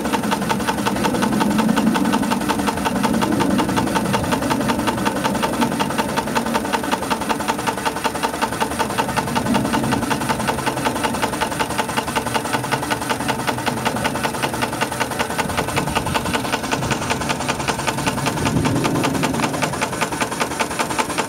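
Steam engine running steadily under steam, with a rapid, even beat.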